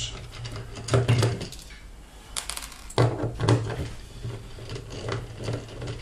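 An 8 mm socket driver turning screws out of the plastic bearing housing on a washing-machine drum: scattered clicks and scraping of metal on plastic, busiest about a second in and again around three seconds in.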